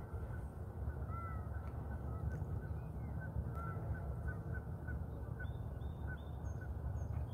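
Birds calling in the distance: a quick string of short, high calls over a steady low rumble.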